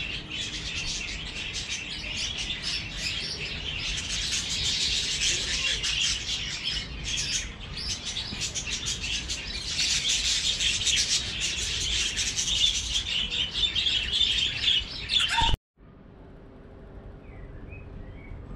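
A flock of budgerigars in an aviary chattering continuously, many overlapping chirps and warbles at once. About three seconds before the end the chatter cuts off suddenly, leaving quieter outdoor air with a few faint bird calls.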